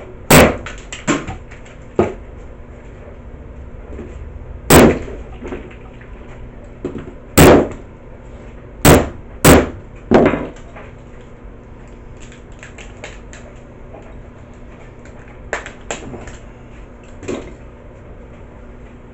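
A Flip HD camcorder being smashed: about eight hard, sharp blows in the first ten seconds, then a few lighter knocks.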